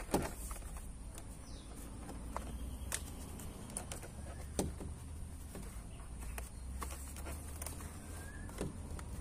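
Scattered clicks and light knocks of a car's plastic inner door panel and its trim clips being handled and lined up, over a steady low hum.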